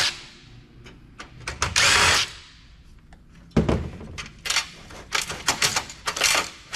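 A power screwdriver runs in a short burst about two seconds in, backing out a screw that holds down a computer backplane board. Then comes a sharp knock, followed by a quick run of clicks and knocks.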